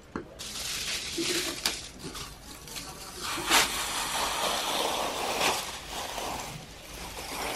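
Large clear plastic sheet crinkling and rustling as it is handled and pulled across the work, with sharp crackles, the loudest about three and a half seconds in.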